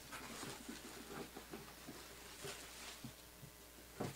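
Faint handling noise: scattered light taps and soft rustles, with one brief swish about halfway through.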